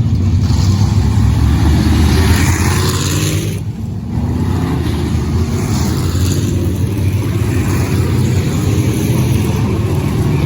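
Micro sprint cars racing, their engines running hard at high revs, with a short dip about a third of the way through.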